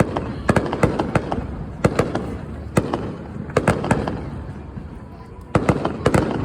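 Aerial fireworks shells bursting: a rapid series of sharp bangs, mostly in quick clusters of two or three, about a dozen in all, over a continuous low rumble.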